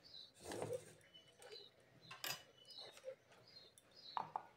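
Faint, short bird chirps repeating every second or so, with a few light knocks.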